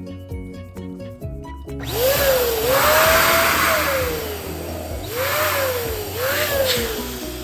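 Electric balloon pump blowing air into a balloon in two bursts, a loud rushing hiss with a whining tone that jumps up and slides down several times, over background music.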